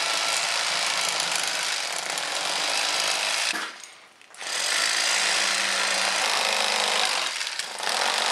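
Corded electric fillet knife running, its reciprocating blades buzzing as they cut through a crappie. The motor stops for about a second near the middle, then starts again.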